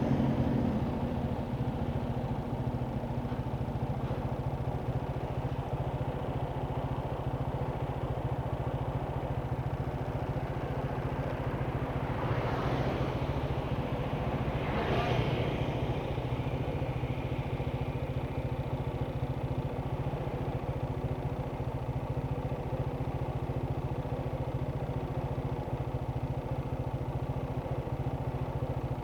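An engine idling steadily close by, with street traffic: two vehicles pass, about twelve and fifteen seconds in, each swelling and fading.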